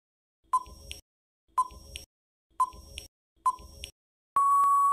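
Quiz countdown timer sound effect: a short beep with a click about once a second, four times, then a long steady beep near the end as time runs out.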